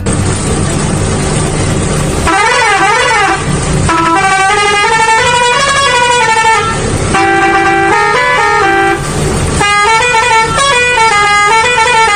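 A steady noisy hiss for about two seconds, then a vehicle horn sounding a run of changing pitched notes, like a musical horn playing a tune.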